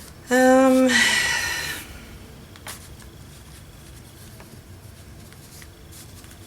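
A short hummed "mm" on one steady pitch, then about a second of rustling as calico fabric and the paper journal cover are handled. After that, a few faint taps.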